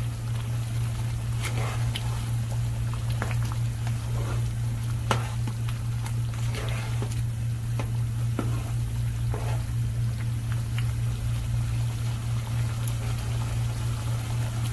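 Thick egg-and-potato curry being stirred in a pot with a silicone spatula: scattered soft knocks and wet, liquid sounds, thinning out after about eleven seconds, over a steady low hum.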